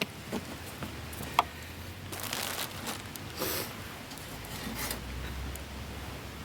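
Rustling and scattered light clicks of camping gear being handled, with one sharper click about a second and a half in.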